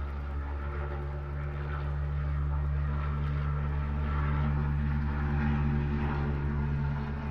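Helicopter flying away just after take-off, a steady low rotor and engine drone made of several hum tones. It swells a few seconds in and eases off near the end.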